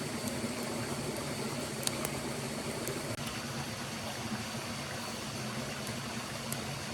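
Steady rush of flowing stream water, with a few faint, sharp ticks over it.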